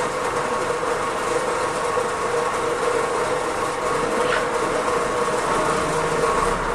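A machine running steadily with a constant whine, as it moves a full water drum.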